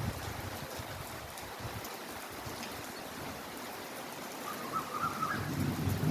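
Heavy rain falling steadily, an even hiss of water. A brief faint warble sounds about five seconds in, and a low rumble builds near the end.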